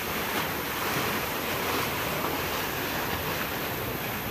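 Steady rushing of choppy canal water, stirred up by a passing canal passenger boat.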